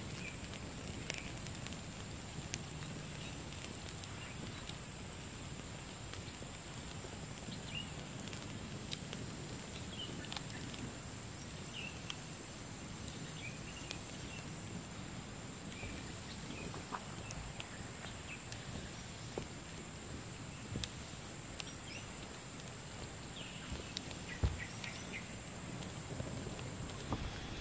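Outdoor forest ambience with a steady high-pitched whine that stops near the end, scattered short bird chirps and occasional faint crackles from a smoky campfire. A few knocks near the end as pots are handled at the fire.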